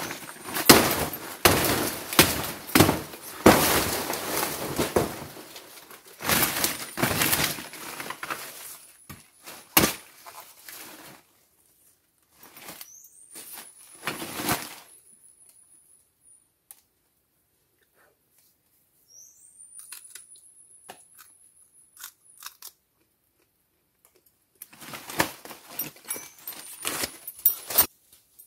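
Dry leaves and banana-plant material rustling and crackling in bursts as a banana plant is handled and cut with a folding shovel, with one sharp knock about ten seconds in. In a quieter middle stretch a high whistle rises and holds twice, and the leaf litter crunches again near the end.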